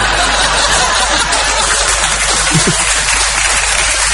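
Live audience applauding: a steady wash of clapping.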